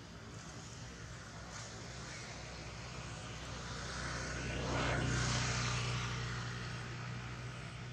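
A passing engine's steady low drone, swelling to a peak about five seconds in and then fading away.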